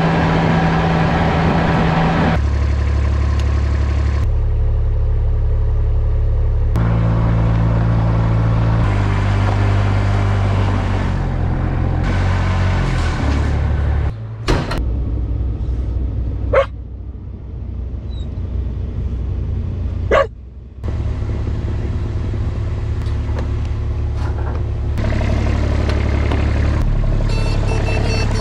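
Diesel utility vehicle's engine running as it drives, its pitch and level jumping abruptly every few seconds. Three sharp knocks come in a quieter stretch in the middle.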